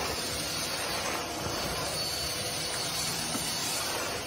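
Vacuum cleaner running with a steady hiss and a faint high whine.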